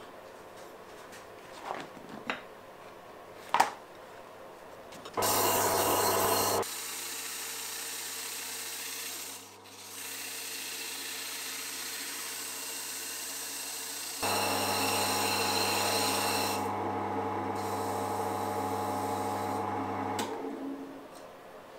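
A few light knocks, then a small four-speed wood lathe starts about five seconds in and runs with a steady hum while a wooden dowel is sanded on it, bringing it down from 21 to 20 mm. The rubbing of the abrasive on the spinning wood grows louder in stretches, and the lathe stops near the end.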